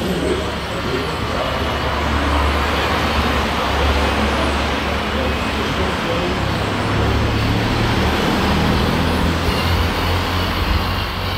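Radio-controlled scale Fendt 1050 tractor driving along a dirt track, a steady low engine-like drone with a constant hum.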